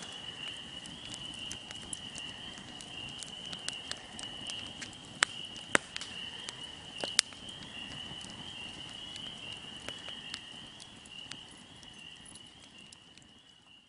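Campfire crackling, with irregular small pops and a few louder snaps, over crickets chirping steadily; it all fades out near the end.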